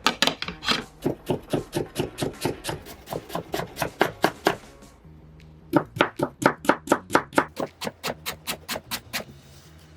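A knife chopping food on a cutting board in quick, even strokes, about four or five a second, in two runs with a short pause about halfway. Soft background music runs under it.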